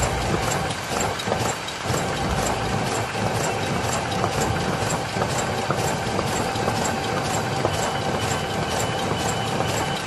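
Plastic courier-bag making machine running steadily: a constant machine hum under a fast, regular clicking as it cycles, cutting and stacking bags.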